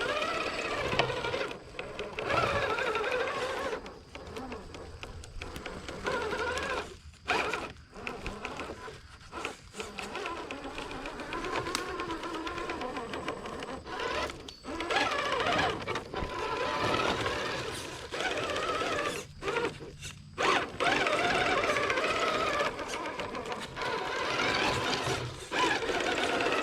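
Traxxas TRX-4 Sport RC crawler's electric motor and geartrain whining, the pitch rising and falling with the throttle and cutting out briefly several times as the truck crawls.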